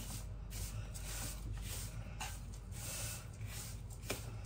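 Wooden spoon stirring a dry, crumbly mixture of roasted semolina and ground dry fruit in a large aluminium pot: soft gritty scraping swishes, about one a second, over a steady low hum.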